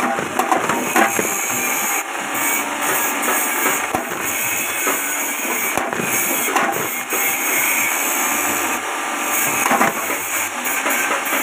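JG 25 electric chaff cutter running and chopping cassava pieces fed into its hopper: dense, irregular clattering and cracking as the blades strike the cassava, over the running motor.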